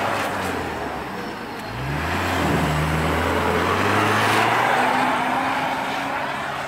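Land Rover Discovery's 300Tdi turbo-diesel engine revving as it drives through deep snow. Its pitch climbs about two seconds in and rises again after about four and a half seconds, and it is loudest around four seconds in as it passes close.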